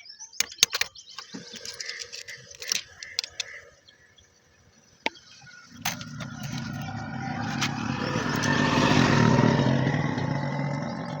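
Several sharp clicks and taps, then a motor vehicle engine running that grows louder about halfway through and fades back a little near the end.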